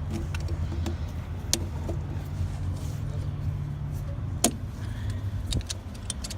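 Tire chain cam being turned tight with a cam key: scattered metal clicks and clinks of chain and key, with one sharp clank about four and a half seconds in, over a steady low hum of an idling truck engine.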